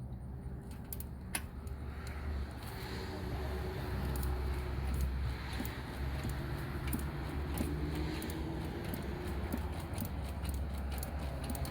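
Metal-on-metal clicks and clinks of a wrench and fitting as a replacement oil pressure sender is screwed into the engine block. The clicks are irregular, sparse at first and coming thicker from a few seconds in, over a low rumble.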